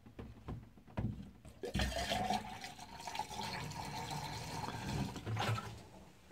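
Pink RV antifreeze pouring from a plastic jug into a drain, filling the drain trap to winterize it; the pour starts about two seconds in and stops shortly before the end. A couple of light knocks come before it.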